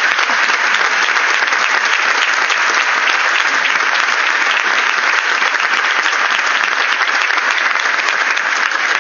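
Audience applauding steadily, a dense sustained clapping from many hands.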